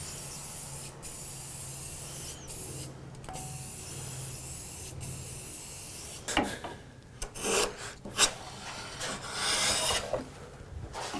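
A steady hiss over a low hum, then from about six seconds in, irregular hand scrubbing strokes on the parts of an old foot-powered mortiser being cleaned up.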